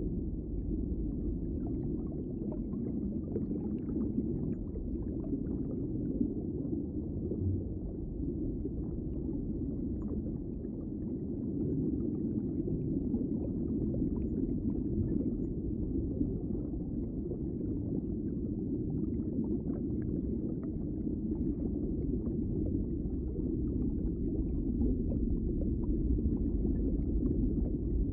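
Muffled underwater noise picked up by a GoPro in its waterproof housing, submerged in a pond: a steady low rumble with faint scattered clicks.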